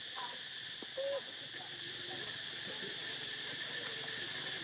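Steady high-pitched drone of insects calling, with one short, clear call about a second in and a few fainter short calls later.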